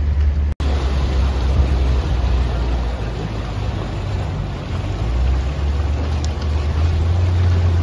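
Motorboat engine running steadily under way, a low hum mixed with the rush of water and wind noise. The sound drops out for an instant about half a second in.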